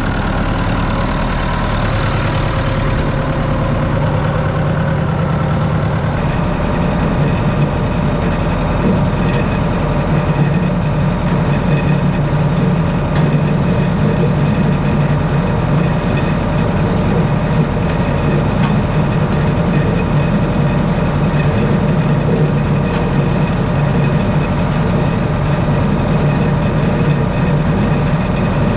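Massey Ferguson 168 tractor's four-cylinder diesel engine running steadily, freshly started.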